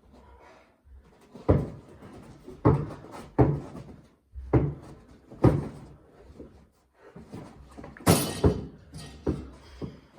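A basketball being dribbled on a hard indoor floor: a series of heavy thuds, roughly one a second and somewhat uneven, with a brighter, longer bang about eight seconds in.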